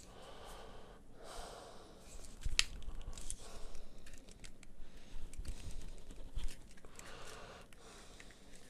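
Unboxing handling noise: soft rustling of cardboard packaging with scattered light clicks and taps, the sharpest about two and a half seconds in.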